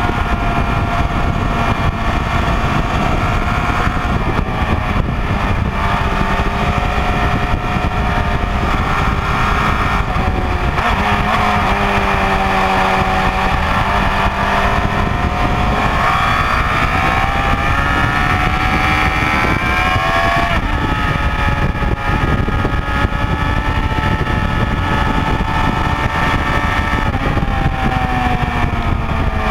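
Honda CBR954RR inline-four engine at track speed under heavy wind rush on the microphone. The revs fall as it slows about four seconds in, stay low, then climb again with an upshift near twenty seconds, and drop off once more near the end.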